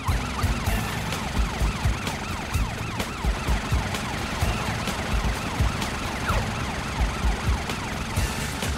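Cartoon emergency-vehicle siren warbling rapidly up and down, over background music with a steady beat.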